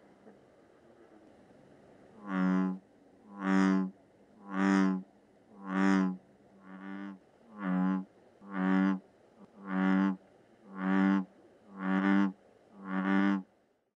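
Male American bullfrog calling: a series of about eleven deep calls, roughly one a second, starting about two seconds in, one of them weaker midway.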